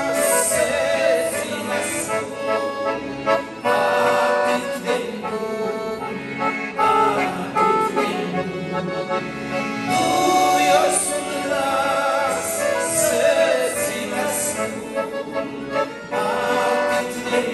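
Two piano accordions playing while two men sing a Romanian hymn in duet, held notes sung with vibrato.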